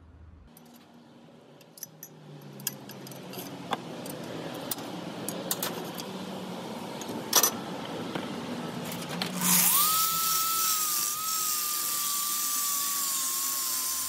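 Scattered metallic clicks and knocks over a rising hiss, then about nine and a half seconds in an angle grinder starts and grinds on the steel bike rack: a loud steady whine with a harsh high hiss, sinking slightly in pitch.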